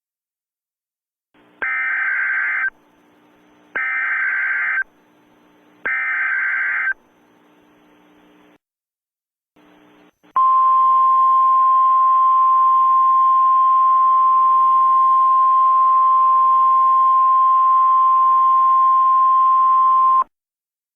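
Emergency Alert System tones: three one-second bursts of the SAME digital header, a harsh warbling data screech, then a steady single-pitch attention tone lasting about ten seconds that cuts off suddenly. Together they announce a new alert, here the emergency action termination.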